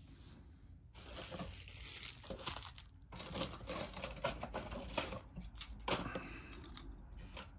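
Plastic packaging from a miniatures kit crinkling and rustling as it is handled, in irregular bursts starting about a second in.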